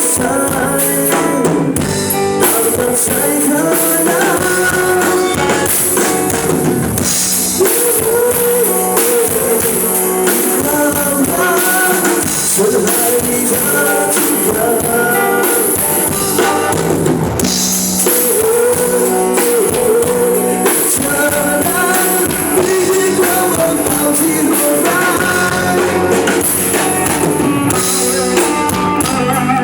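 Live rock band playing a song: a male singer over drum kit, guitar and bass guitar.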